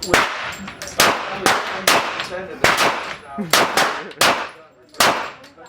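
Gunshots fired one after another, about eight shots at uneven gaps of half a second to a second. Each crack is followed by a short ringing echo.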